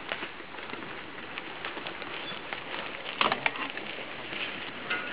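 Mountain bikes riding past on a dirt forest trail: an even rustle of tyres on the ground with scattered crackles and clicks, and a short cluster of louder clicks about three seconds in.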